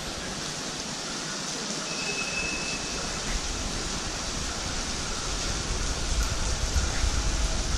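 Steady hiss of rain falling, with a low rumble building up in the second half.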